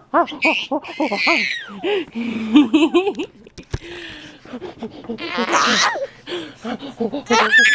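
Laughter and giggling between a parent and a baby, in quick runs of short pulses broken by a few high-pitched squeals.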